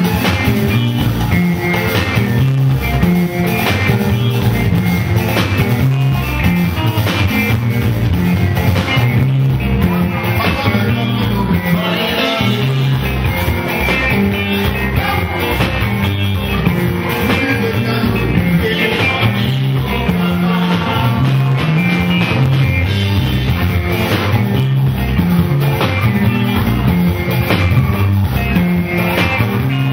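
Live band music: electric guitars over a drum kit keeping a steady, repeating beat.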